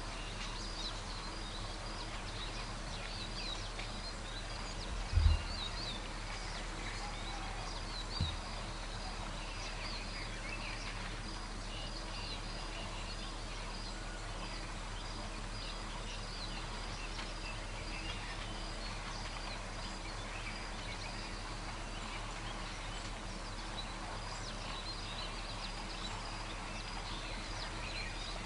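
Forest ambience: small birds chirping over a steady background hiss and a low hum. A dull low thump comes about five seconds in, and a smaller one about three seconds later.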